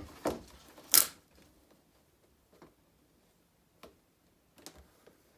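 Vinyl decal backing being peeled and the plastic mudguard handled: a sharp crackle about a second in, then a few faint ticks.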